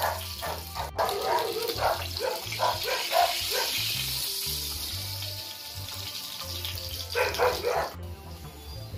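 Whole fish frying in hot oil in a skillet, a steady sizzle, over background music. A dog barks in short bursts from about a second in, and again near the end.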